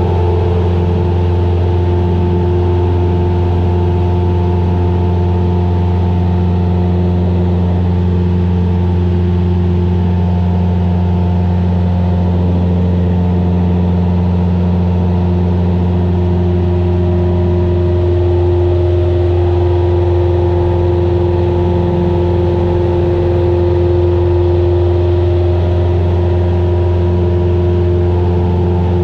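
Light single-engine airplane's piston engine and propeller droning steadily, heard from inside the cockpit as a loud low hum with several steady tones above it. The mix of tones shifts slightly about two-thirds of the way through.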